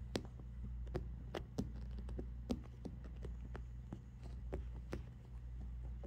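Small, irregular clicks and rustles, a few a second, as a kitten noses and pushes among fabric pillows, over a steady low hum.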